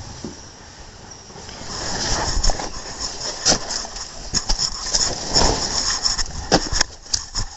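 Scuffling, rustling and irregular knocks of a barefoot person scrambling into and back out of a nylon dome tent on leaf litter, getting busier about two seconds in, over a steady high-pitched night insect chorus.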